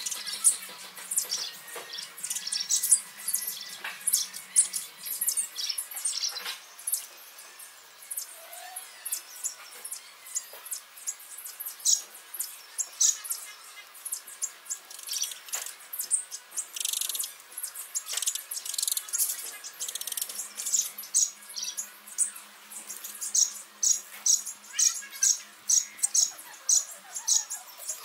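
Eurasian tree sparrows chirping, many short high chirps overlapping, with a quick run of repeated chirps near the end.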